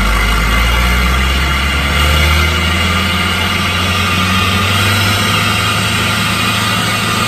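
Kawasaki KLX110 dirt bike's small single-cylinder four-stroke engine running steadily under throttle while the bike is held in a wheelie. Its revs rise a little about one and a half seconds in and then hold.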